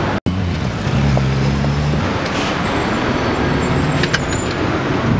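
City street traffic: vehicle engines running under a steady wash of road noise, with a short hiss about halfway through and a few sharp clicks near the end.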